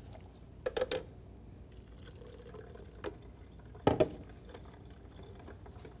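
A few light knocks and clinks of a blender jar and a small mesh sieve being handled and set down on a stone counter. There is a quick cluster of clicks about a second in and a single louder knock about four seconds in.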